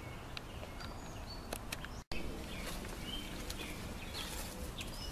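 Outdoor ambience: scattered short bird chirps over a low steady rumble, with light clicks and rustles of footsteps through brush. The sound cuts out for an instant about two seconds in.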